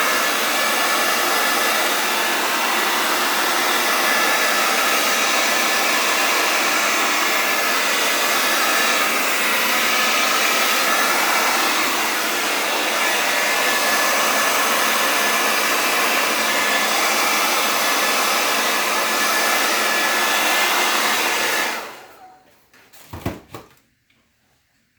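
Hair dryer blowing steadily without a nozzle attachment, pushing acrylic paint across a canvas. It is switched off about 22 seconds in, followed by a couple of brief knocks.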